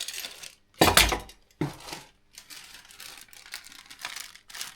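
Diesel heater kit parts being handled and set down: a heavy clunk about a second in, a lighter knock just after, then scattered light clinks and rustling of packaging.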